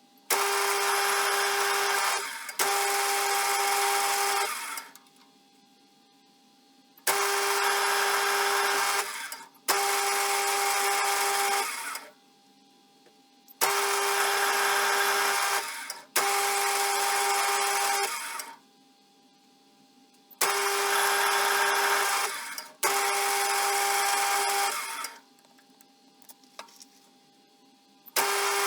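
An electric power tool's motor run in bursts of about two seconds, mostly in pairs with a brief break, each burst starting suddenly with a steady whine and tailing off as the motor winds down.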